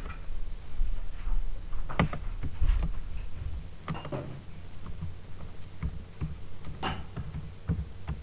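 Slow computer keyboard typing: scattered single keystrokes, a few of them sharper clicks, over a low steady hum.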